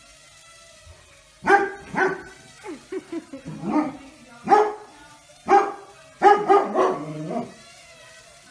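Bernese Mountain Dog barking at a small toy drone: a run of loud barks starting about a second and a half in, with lower grumbling between them and a quick cluster of barks near the end.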